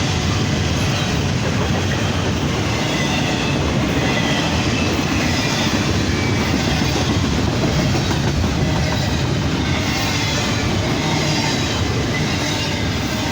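Norfolk Southern freight train rolling steadily past: railcar wheels clacking over the rail joints under a continuous rumble, with a faint high wheel squeal.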